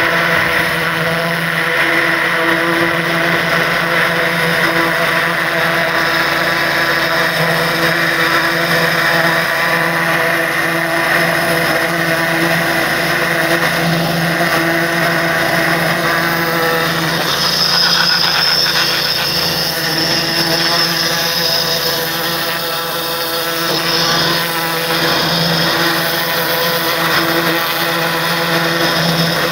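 Pressure washer running steadily, its water jet blasting pine needles and debris out of a metal roof gutter: a constant motor hum under the hiss of the spray, which turns brighter and harsher for a few seconds past the middle.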